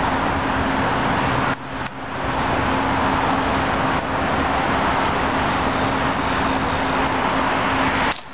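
Steady noise of road traffic going by, with a faint low hum under it. The sound drops away briefly about a second and a half in and again near the end.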